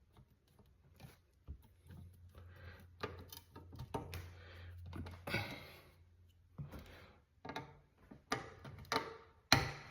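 Small clicks and knocks of a plastic outlet cover plate being fitted over a wall outlet and screwed on with a screwdriver, with a sharp click near the end. A steady low hum runs underneath for about the first half.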